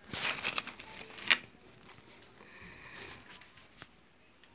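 A hand handling the phone and rubbing over its microphone: rustling and scraping with a sharp knock about a second in. Then it quietens, with a faint click near the end.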